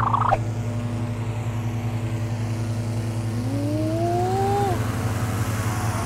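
Petrol-engined inflator fan running with a steady low hum, blowing cold air into a hot-air balloon envelope at the start of inflation. A short rising tone slides up about three and a half seconds in.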